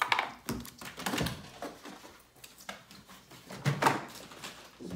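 Irregular knocks and thumps as a capuchin monkey snatches a bowl of scrambled eggs from the counter and bounds away, the bowl and its feet knocking on hard surfaces; a loud cluster of knocks comes near the end.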